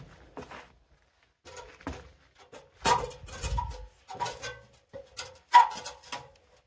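Shoes stepping on the rungs of a metal ladder as someone climbs it: a series of uneven knocks, each with a brief metallic ring. The loudest steps come about three seconds in and again a little past five seconds.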